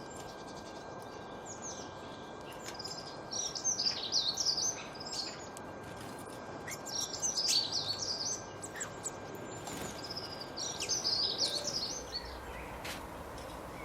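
A songbird singing three short phrases of rapid, warbling notes, each about a second or two long, over a steady background hiss.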